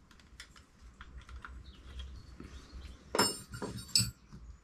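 Hands handling small bike parts and tools at a mountain bike's fork crown and headset: light scattered clicks, then a louder clatter with a short ring about three seconds in and one sharp clack about a second later.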